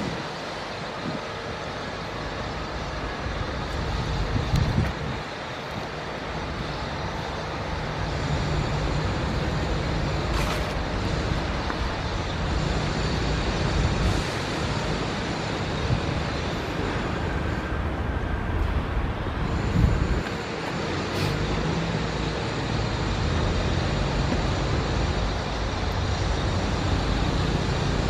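Steady rumble of city traffic, with a few brief louder swells.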